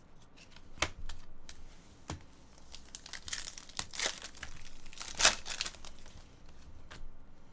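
A foil trading-card pack wrapper crinkling and tearing as it is pulled open, loudest about five seconds in. Before it, a few sharp clicks of stiff cards being handled.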